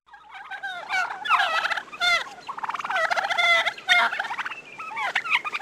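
Male turkey gobbling: a series of fast, warbling gobbles in several bursts, one after another.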